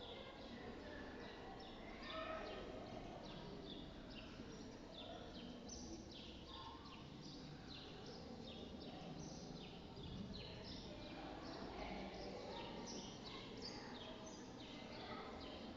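Birds chirping continuously: many short, high notes, each falling in pitch, repeating several times a second over a steady low rumble.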